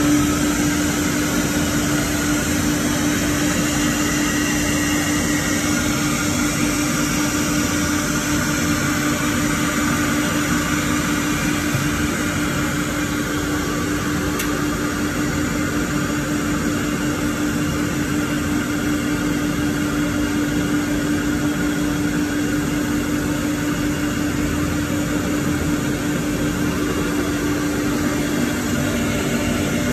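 Four-head CNC router running: a steady single-pitched hum from the spindle, which comes in right at the start and holds, over a broad, even rush of machine noise.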